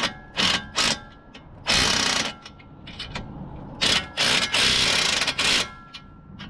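Ratchet wrench clicking in repeated bursts as the CV axle nut is run down snug, before final torquing.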